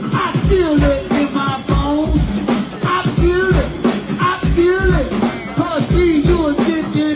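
Live go-go band music: a steady drum and bass beat under a short sung phrase repeated over and over.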